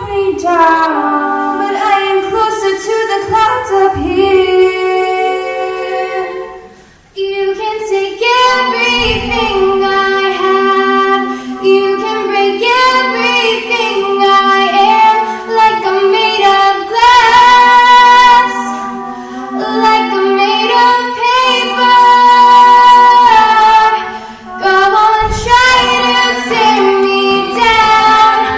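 A group of girls singing a cappella in close harmony, with a low sustained vocal line under the melody; the voices break off briefly about seven seconds in and then come back in.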